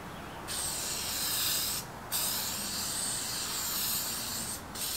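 Aerosol can of Permatex heavy-duty headliner spray adhesive spraying in long hissing passes, laying down a coat of glue. The hiss starts about half a second in and breaks off briefly twice, just before the two-second mark and near the end.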